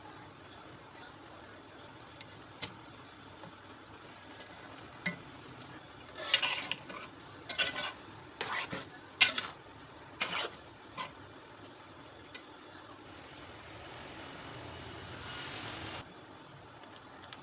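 A spatula scraping and knocking against an aluminium karahi as cooked yellow rice is stirred, a run of loud scrapes and clatters about six to eleven seconds in, with a few lighter ticks before. Later a steady hiss rises and cuts off suddenly.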